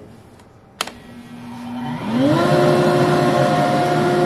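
Single-stage dust collector with a canister filter switched on with a click about a second in. Its motor and impeller then wind up with a rising whine and settle into a loud, steady run.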